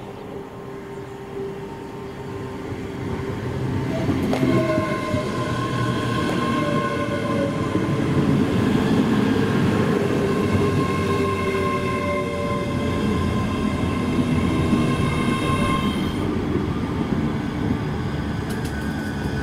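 A train running past on the line: its rumble and wheel noise build sharply about four seconds in and stay loud. A steady whine of several high tones rides over the noise until a few seconds before the end.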